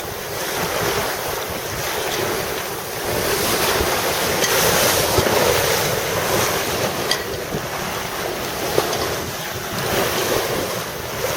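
Wind buffeting the microphone over the rush and splash of water along a sailboat's hull under way in a strong breeze.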